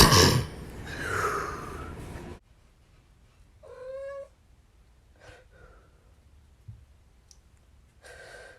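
A man's sneeze bursts out at the very start and trails off into a noisy breath out lasting about two seconds. About four seconds in comes one short high-pitched call. Near the end a gasping breath in begins.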